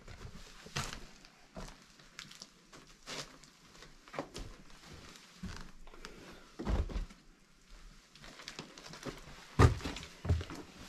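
Irregular footsteps and scattered knocks, with two louder thumps about seven and nine and a half seconds in.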